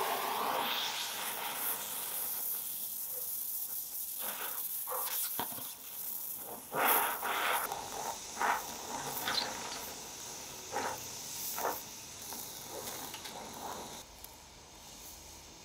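Gas torch flame hissing steadily while brazing a brass guard onto a steel knife blade, with scattered crackles and pops; the hiss drops a step quieter near the end.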